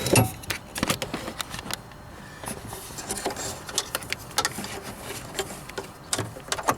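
Irregular small clicks and light rattles of plastic parts being handled, as the parking-light bulb and its holder are worked back into the headlight housing.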